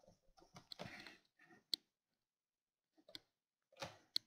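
Faint rubbing of a whiteboard eraser wiping marker off the board, in short strokes, with two sharp clicks: one a little under two seconds in and one near the end.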